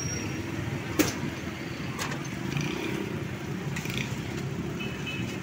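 Steady street noise with traffic running in the background. Over it come a few sharp clicks, the loudest about a second in and fainter ones near two and four seconds.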